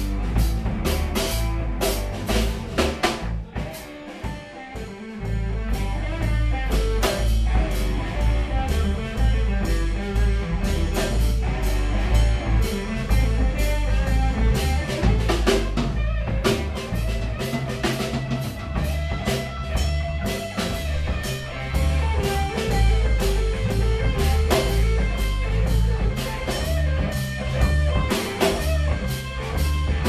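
Live band playing amplified electric guitars with a drum kit, without vocals. The band drops back briefly about four seconds in before coming in again at full level.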